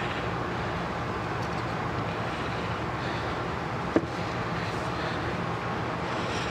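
Shop air compressor running with a steady hum, its enclosure left open so it is much louder than normal. One sharp knock about four seconds in.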